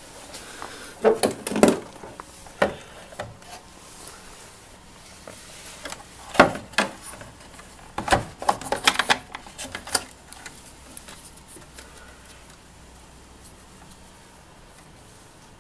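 Plastic clicks, knocks and rubbing from handling a Ford Focus Mk2 rear light cluster and twisting out its amber indicator bulb holder. The sharp clicks come in scattered clusters over the first ten seconds, then die away to quiet handling.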